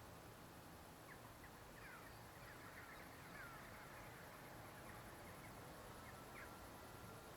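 Faint bird calls: a loose series of short chirping notes starting about a second in and dying away near the end, over a steady background hiss.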